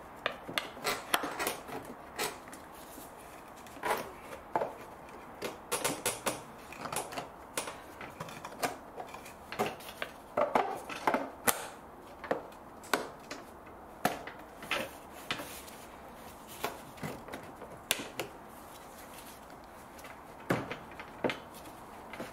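Hard plastic trim and cover pieces being worked into place by hand: irregular sharp clicks, knocks and clatter, some in quick clusters, as the plastic is bent, pushed and snapped onto its mounting pins.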